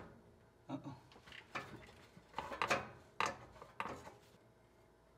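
Scattered light metal clunks and knocks, about seven irregular ones in the first four seconds, as the E4OD automatic transmission is worked back off the engine on a transmission jack.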